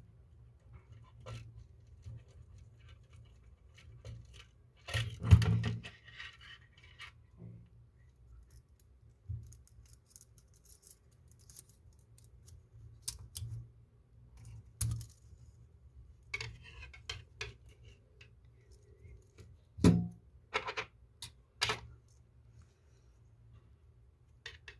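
Small metal clicks, taps and scrapes of tools and parts being handled while a Veglia alarm clock movement is reassembled, with a louder clatter about five seconds in and a few sharp knocks around twenty seconds in.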